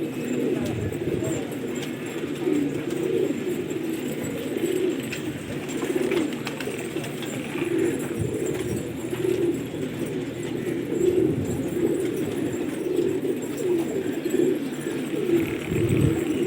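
A flock of domestic pigeons cooing, many birds overlapping in a continuous low burble.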